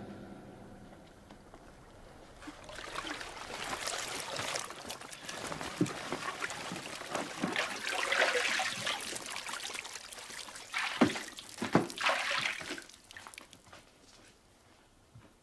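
Bathwater sloshing and trickling, in uneven surges, as a body moves in a bathtub, with several soft knocks through it; it dies away shortly before the end.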